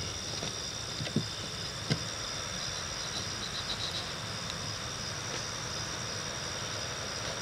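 Two light ticks, about one and two seconds in, as a red plastic scraper lifts old silicone sealant off a camper roof, over a steady, high insect chirring.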